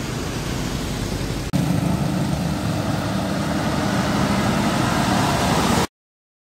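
Road traffic and engine noise heard from a moving motorcycle, with a louder low engine rumble after a cut about a second and a half in. The sound cuts off abruptly near the end.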